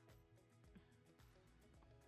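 Quiet background music with held notes over a light, regular beat.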